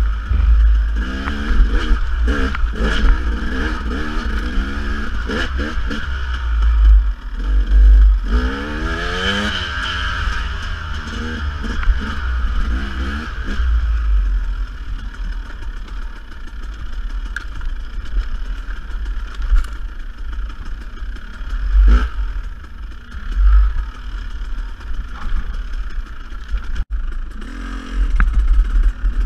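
Dirt bike engine revving up and down again and again through roughly the first half, then running steadier. Heavy wind rumble on the microphone and a few sharp knocks run under it.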